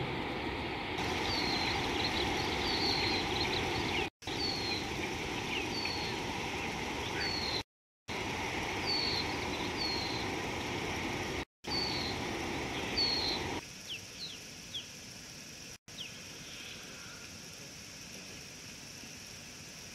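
Birds chirping repeatedly in short high notes over a steady rushing noise that stops abruptly about two-thirds of the way through. After that, only faint outdoor ambience and a few more chirps remain. The sound cuts out completely for a moment four times.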